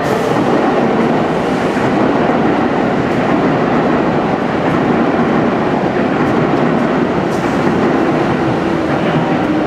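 Electric commuter trains running past close below: a yellow Seibu 9000 series train moving along one track while a second train passes on the next, a loud steady rumble of wheels on rail. A few steady tones come in near the end.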